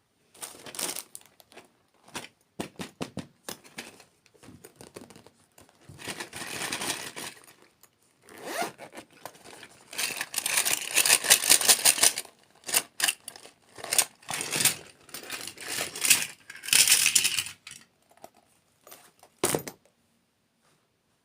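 Close-miked ASMR eating sounds: crisp, crackly crunching of dessert in irregular bites and bursts, with a sharp knock near the end.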